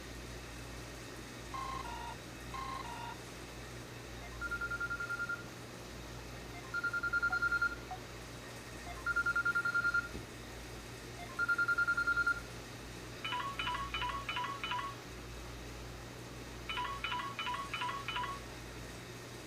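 Samsung Galaxy Y Duos (GT-S6102) mobile phone playing short electronic ringtones. First comes a quick two-note figure, played twice. Then four long single beeps about two seconds apart, and near the end two bursts of rapid warbling pulses.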